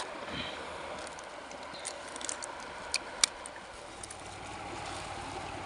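A few sharp clicks and rustles from hands handling live freshwater crabs, a plastic bag and a leaf, over the steady hiss of a flowing hill stream.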